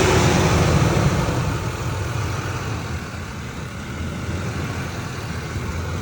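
2003 Ford Expedition's V8 idling steadily as it warms up, with no belt or pulley chirp yet; the chirp only appears once the engine reaches operating temperature. The sound eases off a little over the first couple of seconds, then holds steady.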